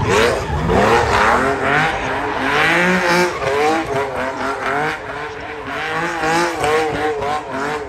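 A race car running hard, its pitch swinging up and down again and again as it is driven sideways, with tyres squealing through the first few seconds.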